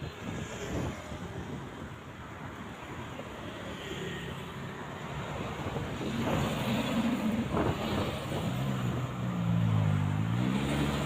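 Road traffic, growing louder as a vehicle approaches; in the last few seconds a pitched drone with several tones that bend up and down as it comes close.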